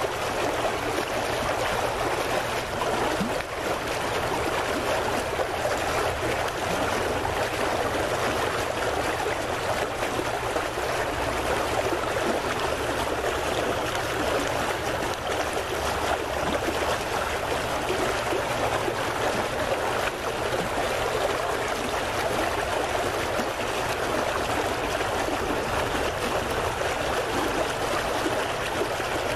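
Water lapping and splashing steadily against a dock, a constant watery rush.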